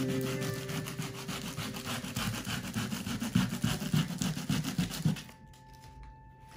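Rapid back-and-forth scraping of a hand-held tool over the dried, textured acrylic and oil paint layers of a canvas, scraping the paint back. The strokes stop abruptly about five seconds in.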